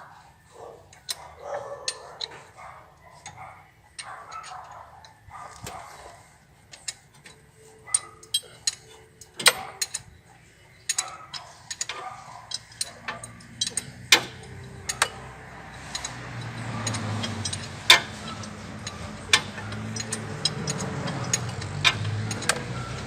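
Hand tools working on engine bolts: scattered metallic clicks and knocks, as a ratchet wrench undoes the tensioner bracket bolts. A low steady hum comes in about halfway and grows louder toward the end.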